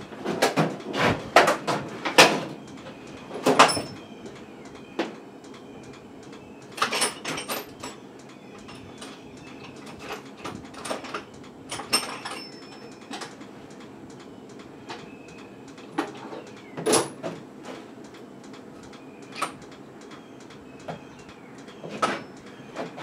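Irregular knocks and clattering of hard objects being handled and set down, in clusters with pauses between them, busiest in the first few seconds.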